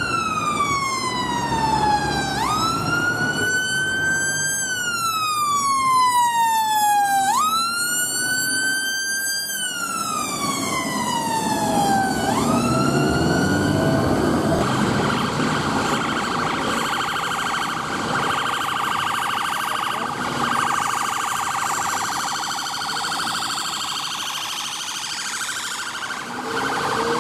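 Ambulance siren on the wail setting, sweeping slowly up and then falling over about five seconds, twice over. About halfway through it switches to a fast, steady warble, with traffic noise underneath.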